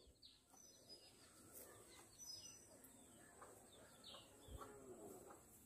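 Near silence with faint bird chirps: short falling notes, repeated every second or so.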